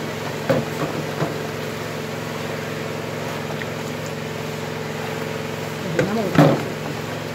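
A steady mechanical hum with a few short clinks of a metal spoon against a stainless steel mixing bowl about a second in, as batter is stirred. A person's voice comes briefly near the end.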